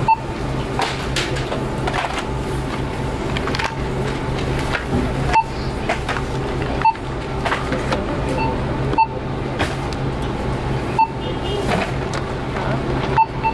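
Self-checkout barcode scanner beeping as items are scanned: about six short, high beeps at irregular intervals of one to two seconds, over steady background music.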